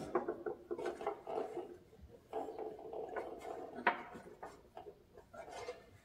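Irregular light clinks and knocks of small metal parts being handled, with a few sharper clicks, the clearest about four seconds in.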